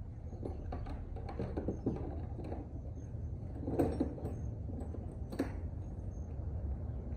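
Hand tools clattering into a plastic toolbox, then the lid knocking shut about four seconds in and a latch snapping closed a second or so later, over a steady low hum.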